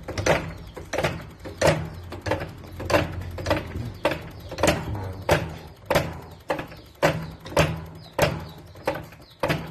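Diesel injector from a 6M70 engine being worked on a tester: a rhythmic train of sharp strokes, about three every two seconds, over a steady low hum. The injector is failing the test: the mechanic finds it gives nothing under load and blames excessive backleak for the hard starting.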